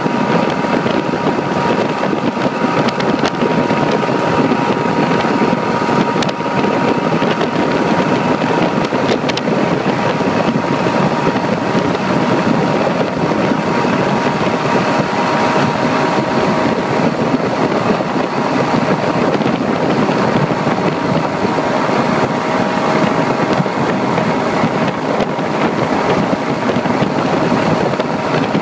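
Outboard motor on a speeding motorboat running steadily, with a faint steady whine over a rush of wind on the microphone and churning wake water.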